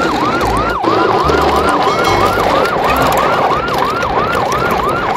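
An electronic siren wailing in fast repeated rising sweeps, about three a second.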